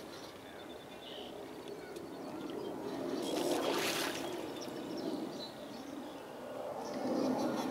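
Outdoor noise of wind and lapping lake water, with a louder rushing swell about three to four seconds in.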